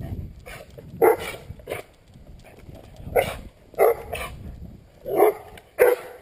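A dog barking repeatedly: about seven barks in irregular groups of two or three.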